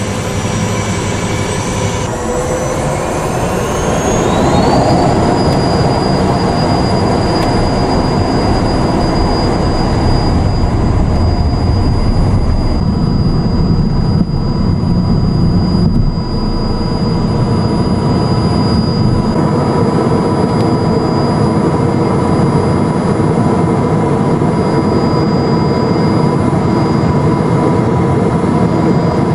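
Twin turbofan engines of a Cessna Citation Mustang heard from inside the cabin. About two seconds in, a high whine rises over a couple of seconds as the engines spool up to takeoff power. It then holds steady over a loud rumble through the takeoff run.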